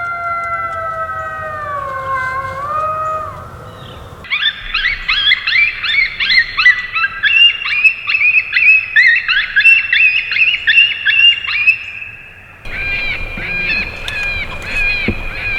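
Coyote vocalizations: a drawn-out howl that slowly slides down in pitch, then, about four seconds in, a long fast run of high yips and whines. A similar string of yips starts again near the end.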